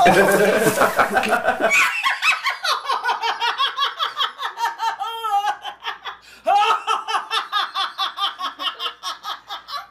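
A woman's hearty belly laughter in rapid rhythmic bursts, with a high wheezing squeal in the middle and a fresh bout after a short pause about six and a half seconds in. It follows a loud, rough opening of about two seconds.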